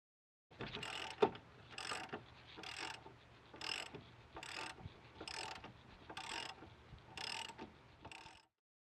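Hand ratchet wrench worked in repeated strokes, about one a second, nine strokes in all, each a short burst of pawl clicking, with one sharp metal knock about a second in.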